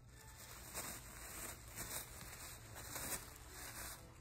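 Tissue paper rustling and crinkling in a string of irregular short rustles as a small dog noses and digs through it.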